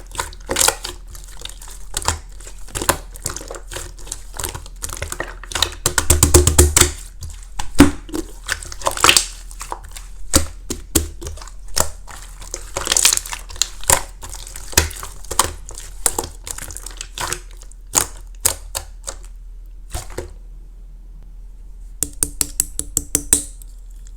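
Clear slime mixed with flakes being pressed and squished by hand, giving irregular sharp clicks and crackling pops. There is a denser run of pops about six seconds in, and a quick flurry of clicks near the end after a short pause.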